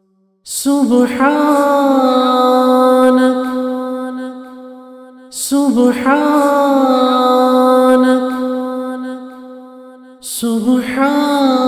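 Wordless chanted vocals: a voice sings three long held notes, each opening with a short wavering turn and then sustained, the first about half a second in, the next around five and a half seconds, and the last just after ten seconds.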